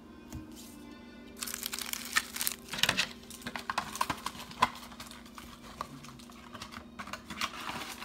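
Foil booster pack wrapper being torn open and crinkled for about three seconds, then lighter sparse rustling, over faint background music.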